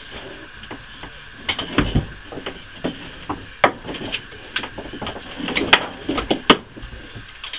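Irregular clanks and knocks of tools and metal being handled on a workbench, with louder clusters of knocks a couple of seconds in and again near the end.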